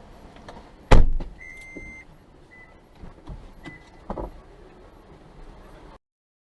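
A car door slams shut with a loud thud about a second in, followed by an electronic beep of about half a second and two short blips. A second, softer thump comes a few seconds later, then the sound cuts off suddenly.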